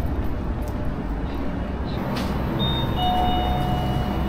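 Road traffic noise: a steady low rumble of passing vehicles, with a few thin, steady high tones joining in during the second half.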